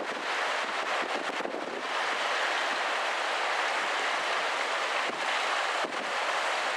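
Sagami River rushing steadily, running high after a typhoon: an even, unbroken noise of fast-flowing water.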